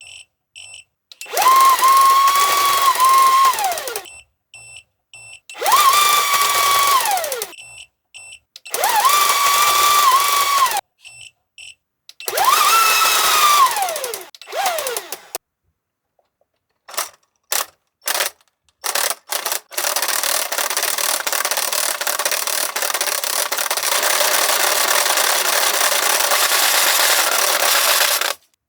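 Toy soccer coin bank driven from a DC power supply above its battery voltage: its small motor mechanism runs in four loud bursts, each a high whine that holds steady and then drops in pitch as it stops. Then come several short clicks and a long continuous run with a dense buzzing rattle.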